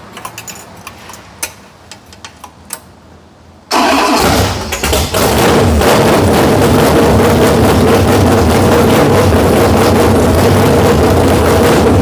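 512 cubic inch big block Mopar V8 on an engine run stand firing suddenly about four seconds in, then running loud and steady through open headers after a brief stumble. It runs on fuel squirted into the carburetor, and it wants a lot of fuel to stay alive.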